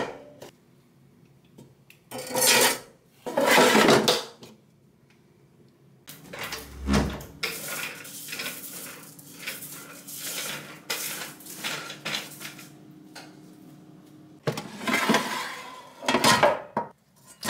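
Plastic air fryer basket sliding along its housing, scraping and knocking, a few seconds in and again near the end as it is pulled out. Between these come quieter scattered clicks and rubbing from a floor mop being pushed.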